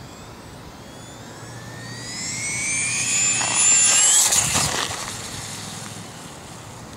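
Traxxas Mini Revo RC truck's Mamba Max 5700kv brushless motor and geartrain whining at high speed on a 3S LiPo: a high whine rising in pitch as the truck accelerates toward the camera, loudest as it passes about four seconds in, then cutting off and fading as it goes away.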